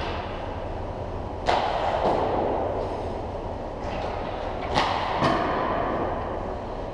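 Sharp cracks of hockey sticks and pucks on an ice rink: one about a second and a half in and two close together near five seconds, each followed by a short echo, over a steady rink rumble.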